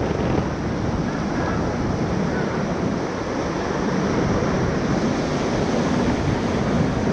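Whitewater rapids rushing steadily, a constant loud wash of churning river water around the raft.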